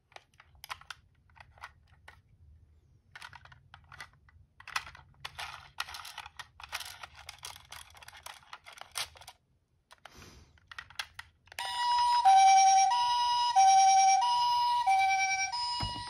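Small clicks and taps of a diecast toy ambulance being handled and turned over in the fingers. About three-quarters of the way in, a loud two-tone ambulance siren starts, switching back and forth between two pitches.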